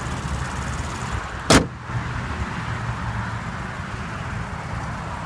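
The hood of a 2014 Lexus GS350 F Sport is slammed shut once, a single sharp bang about a second and a half in, over a low steady rumble.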